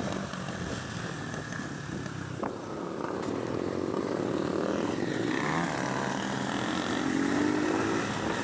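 Honda CB 300 motorcycle engine running while riding, its pitch shifting up and down about halfway through, with one sharp click a couple of seconds in.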